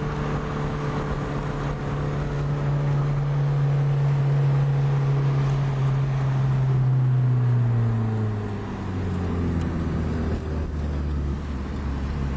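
Car engine heard from inside the cabin, running steadily with its note slowly sinking, then the revs glide down about eight seconds in and settle to a lower, steady drone.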